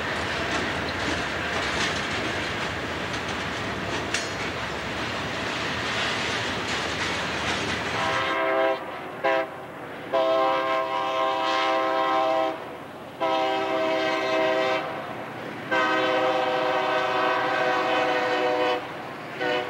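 Freight cars rolling past with a steady rumble of wheels on rail. Then a freight locomotive's multi-chime air horn blows two short toots followed by three long blasts, and a short toot near the end.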